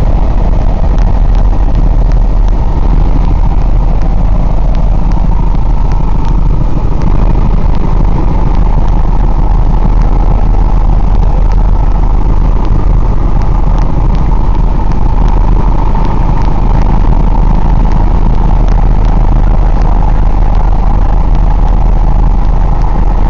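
Helicopter in flight heard from inside the cabin: a loud, steady drone of engine and rotors.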